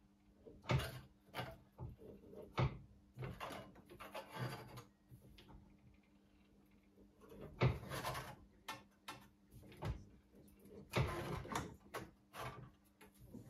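Hand hammer striking a strip of sheet metal clamped in a bench vise: irregular sharp blows, some in quick pairs, with a pause of about two seconds midway.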